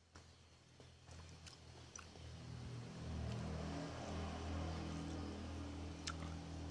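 Eating sounds of someone eating rice by hand, with a few small sharp clicks of chewing and mouth noise. Under them a low steady drone comes in about two and a half seconds in and stays the loudest sound.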